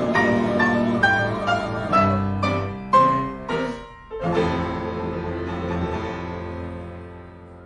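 Piano playing a falling run of notes over low double bass notes, then a final chord about four seconds in that rings and slowly fades away as the song ends.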